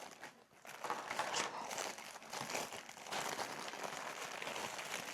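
Crinkling of a plastic bag being handled, with a sticky squishy toy inside.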